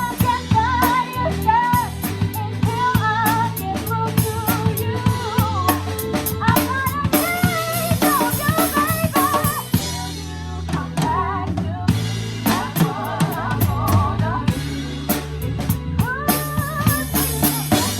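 Live band playing a seventies rock tune with the drum kit up front: a steady beat of kick drum, snare and rimshots under bass notes and a wavering melodic lead line.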